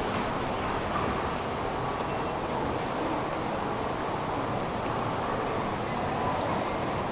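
Steady rumbling ambience of an underground metro station, with no train at the platform. A faint, brief high whine sounds about two seconds in.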